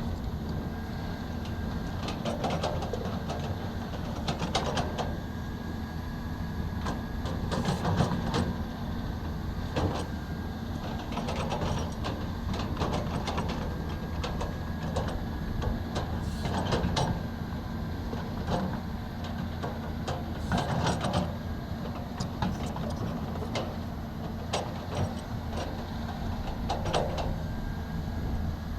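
Excavator's diesel engine running steadily under work, with a faint steady whine and intermittent knocks and scrapes.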